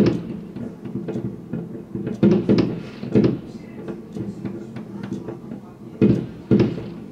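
New Year fireworks going off: a string of sharp bangs. The bangs come at the start, several around two to three seconds in, and two more about six seconds in, with smaller pops in between.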